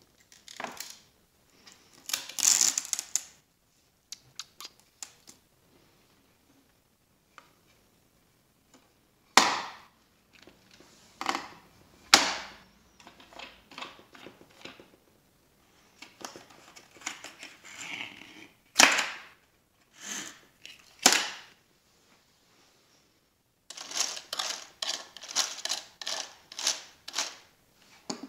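Hands working the moving parts of a homemade busy board: pieces clicking, knocking and rattling in irregular bursts, with several louder single clacks midway and a run of close-spaced clicks near the end.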